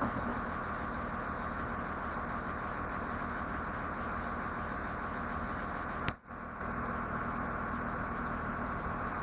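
A work truck's engine running steadily at idle, with a steady hum under a haze of noise; a sharp click and a brief break in the sound come about six seconds in.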